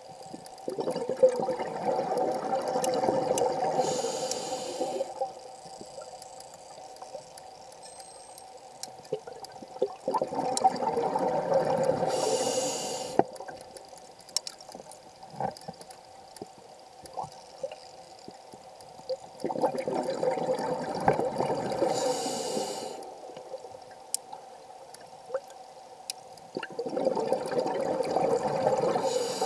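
Scuba diver breathing through a regulator: exhaled bubbles rush out in four bursts of about three seconds each, roughly every nine seconds, each ending in a short hiss, with faint clicks in the quieter stretches between.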